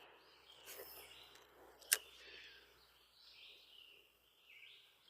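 Faint outdoor ambience with birds chirping, and one sharp click about two seconds in.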